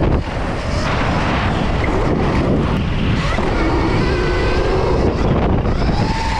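Stark VARG electric dirt bike's motor whining, its pitch rising and falling with the throttle, under heavy wind rush on a helmet-mounted camera microphone while riding.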